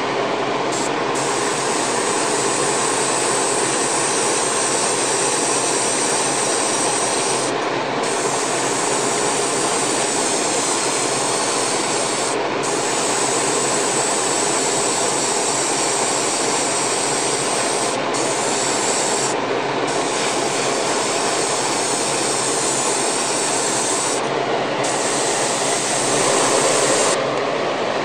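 Airbrush spraying black primer surfacer, a loud steady hiss that lets up briefly several times as the trigger is eased.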